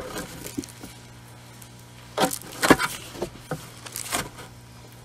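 Bible pages being flipped: a run of short, crisp paper rustles and snaps starting about two seconds in.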